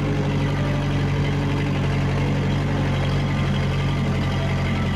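Vehicle engine running steadily at an even pitch, with a constant low hum.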